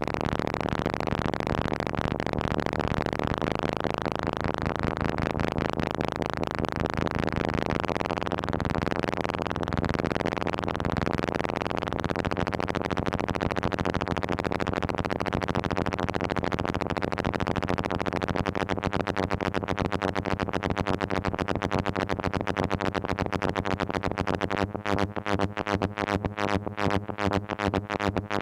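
Moog Mother-32 analog synthesizer modulated by a Comdyna GP-6 analog computer running the Lorenz chaos equations: a dense, constantly shifting buzzing tone with rapid wobbles. Near the end it breaks into a fast, choppy pulsing.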